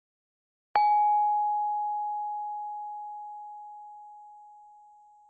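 A single bell-like ding less than a second in: one clear tone that rings on and fades away slowly over several seconds.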